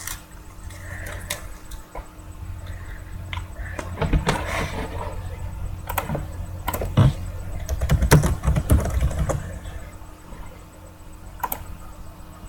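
Scattered sharp clicks and brief rustles from small handling or typing noises, louder in two stretches about four and eight seconds in, over a steady low hum.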